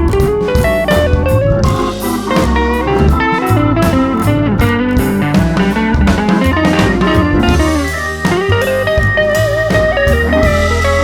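Background music: a blues tune led by guitar over bass and drums.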